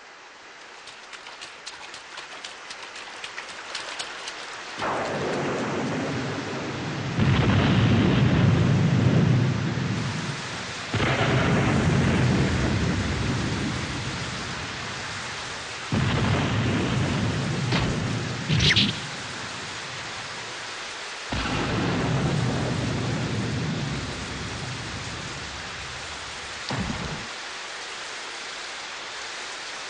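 Steady rain that fades in at the start, with several claps of thunder that break in suddenly and rumble low for a few seconds each. The loudest comes about seven seconds in.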